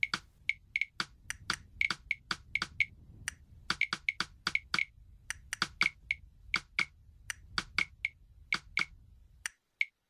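A flock of shorebirds calling as they take flight: many short, sharp call notes, several a second and irregular, stopping just before the end.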